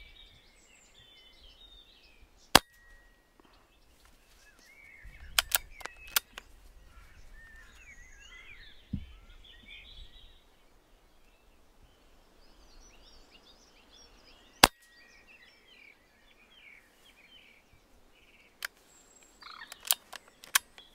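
Two shots from a silenced air rifle, each a single sharp crack, about twelve seconds apart and the loudest sounds here. Groups of softer clicks follow a few seconds after the first shot and again near the end. Birds sing throughout.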